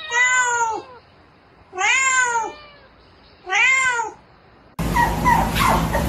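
Tabby domestic cat meowing three times, each meow under a second long and rising then falling in pitch, with short quiet gaps between. About five seconds in the sound gives way abruptly to a steady background noise with faint high squeaks.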